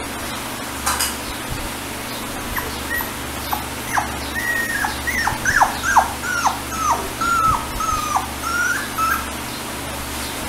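Chihuahua puppy whimpering: a run of a dozen or so thin, high whines, many sliding down in pitch and a few held level. They start about two and a half seconds in and stop shortly before the end, over a steady background hiss.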